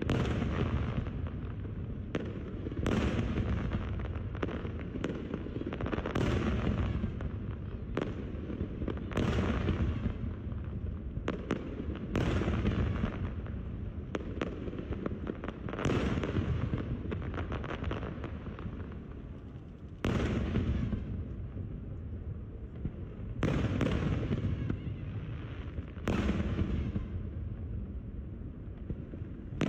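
Aerial fireworks display: shells bursting one after another, a boom every one to three seconds, each dying away in a rumbling echo, with quicker crackling pops in between.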